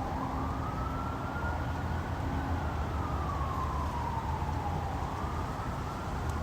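Police car siren sounding a slow wail: the pitch rises for about two and a half seconds, falls back over the next two and a half, and starts rising again near the end. A low rumble runs underneath.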